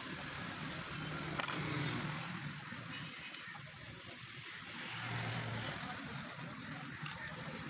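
Steady background noise of motor-vehicle traffic, with an engine hum swelling about a second in and again near five seconds, and a few faint clicks of plastic mirror parts being handled.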